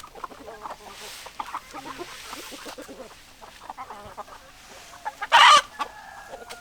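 Chickens clucking, many short clucks overlapping, with one much louder short call about five seconds in.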